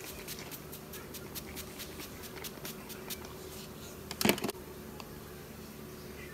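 Rose water mist spray bottle pumped rapidly, about five short hissing sprays a second for the first three seconds. A louder clatter comes about four seconds in, over a faint steady hum.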